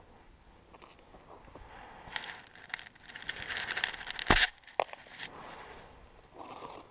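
White birch longbow being shot: rustling and scraping as the arrow is drawn, then the sharp thump of the bowstring released about four seconds in, followed by two fainter clicks.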